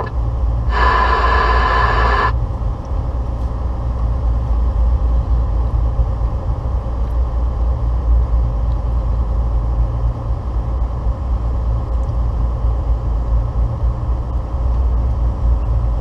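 Steady low rumble of a 2015 Volvo 670 semi truck driving on a highway, heard inside the cab. About a second in, a short hiss-like burst lasts about a second and a half.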